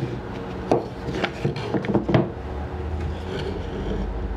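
African mahogany boards handled and set down on a workbench: several light wooden knocks in the first half, over a steady low hum.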